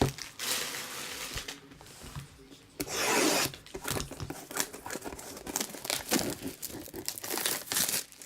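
Plastic packaging crinkling and tearing as trading-card wrappers and boxes are handled: a few louder rustling tears, the biggest about three seconds in, then a run of small crackles and clicks.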